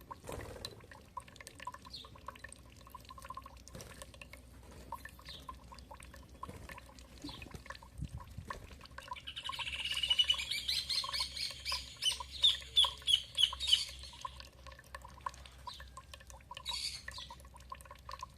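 A songbird sings a run of quick high chirping notes about halfway through, with a shorter call near the end. Water drips and trickles steadily underneath.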